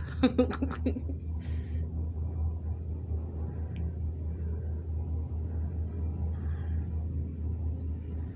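Steady low rumble inside a cable-car gondola cabin travelling along the line.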